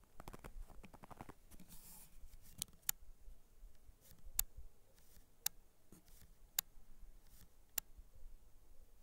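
Faint handling noise close to the microphone: rustling near the start, then a string of sharp clicks, the later ones coming about once a second.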